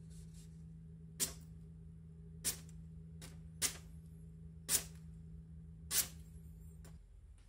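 A freshly sharpened deba knife slicing down through a hanging sheet of newspaper five times, a little over a second apart, each cut short and sharp: a paper-cutting test of the new edge. A steady low hum runs underneath and stops near the end.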